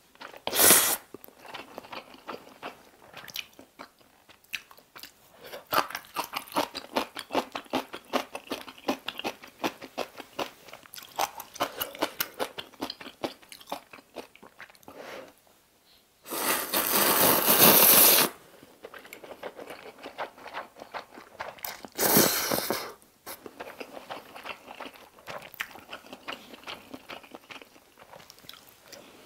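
Close-miked eating of instant ramyeon noodles in broth: steady wet chewing with many small clicks, broken by loud slurps of noodles, a short one near the start, a long one lasting about two seconds around the middle, and another shortly after.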